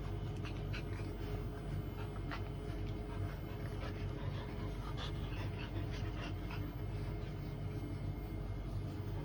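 Australian Shepherd whimpering in short high squeaks and panting, on and off through most of the stretch, over a steady low hum.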